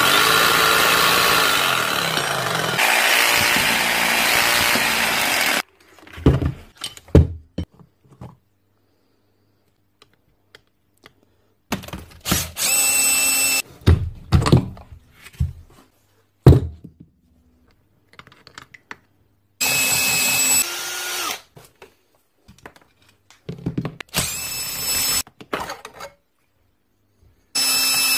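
Makita HM0810T demolition hammer's electric motor running at a steady whine with no hammer blows, the sign of its hammer action having failed. Later come several short bursts of the same motor whine, with knocks and clatter of metal parts between them.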